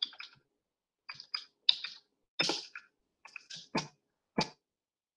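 Typing on a computer keyboard: a run of irregularly spaced key clicks that stops about four and a half seconds in.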